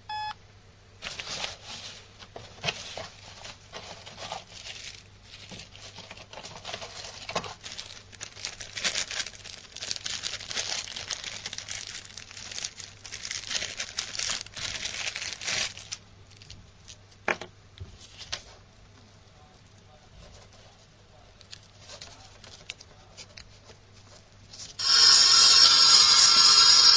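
A short key beep from a W960 mobile phone watch, then crackling, hissing static from its FM radio, with scattered clicks, for about fifteen seconds before it fades down. About 25 seconds in a wired earphone is plugged in and the radio's sound suddenly jumps much louder.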